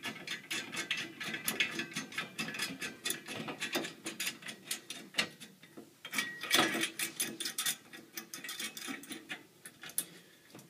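Hex nuts being spun by hand down carriage bolts on a metal mounting bracket: a fast run of small metallic clicks and rattles from the nuts, washers and bracket, with a louder clatter about six and a half seconds in.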